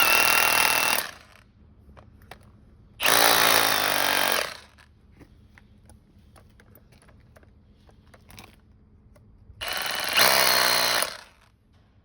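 Power drill run in three short bursts, each starting with a rising whine as the motor spins up, then grinding: pilot holes being just started in the pavement for the post's anchors.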